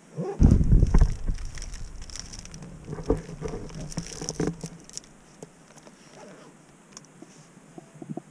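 Handling noise on a small action camera's microphone as the camera is moved and turned: a loud low rumble about half a second in, then scattered clicks and rustling that die away after about five seconds.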